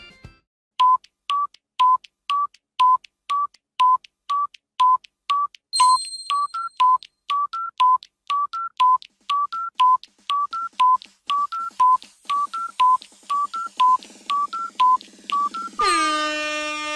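Countdown timer ticking in short electronic beeps, about two a second, alternating between a lower and a higher pitch. About a second before the end a loud horn-like buzzer sounds, signalling that time is up.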